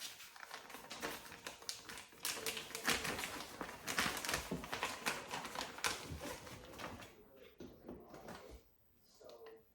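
Rapid, irregular clicking and tapping of hands-on handling noise, thinning out near the end.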